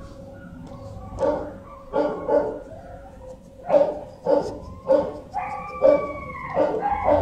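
Dogs barking in a repeated run, roughly one or two barks a second, with a drawn-out whining call near the end.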